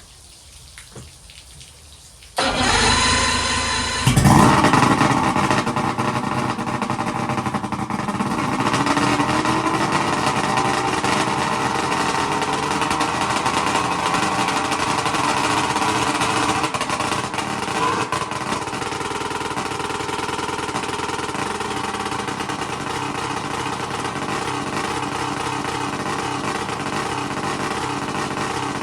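Two-stroke outboard motor cranked by its electric starter about two seconds in, catching and firing up almost two seconds later on its first start after an ignition repair. It then keeps running steadily at a high idle.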